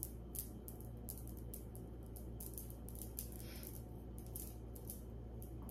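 Small, scattered clicks and light rustling as pieces of fashion jewelry and their packaging are handled, over a steady low hum.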